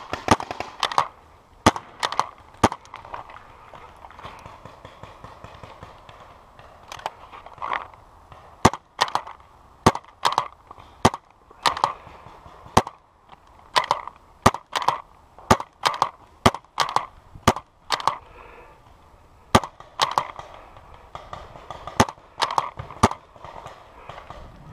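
Paintball markers firing during a game: sharp pops scattered irregularly, some single and some in quick strings of two or three.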